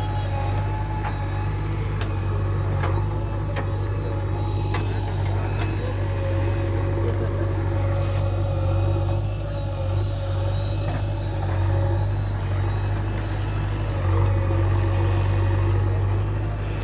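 Heavy diesel machinery engine running steadily under load, with a few short knocks scattered through.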